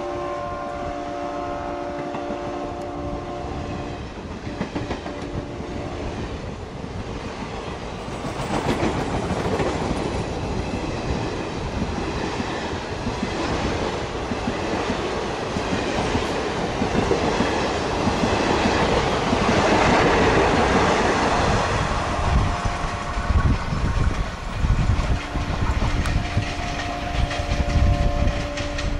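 Express train coaches rushing past at speed, wheels clattering over the rail joints, the rush growing louder partway through. The WDM3A diesel locomotive's horn fades out in the first few seconds, and a horn sounds again briefly near the end.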